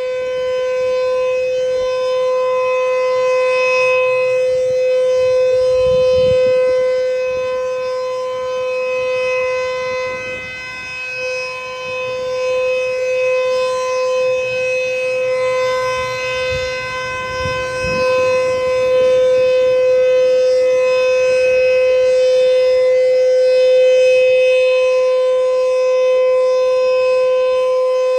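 Sentry 3V8HB electromechanical outdoor warning siren sounding its steady alert tone during a siren test. It holds one pitch throughout, and its loudness swells and fades slowly.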